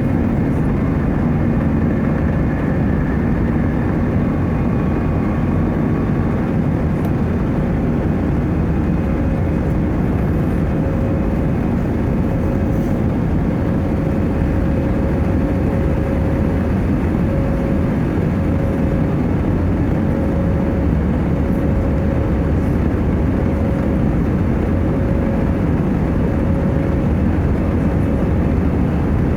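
Airbus A320 jet engines and airflow heard from inside the cabin: a steady, loud roar with a faint constant hum running through it.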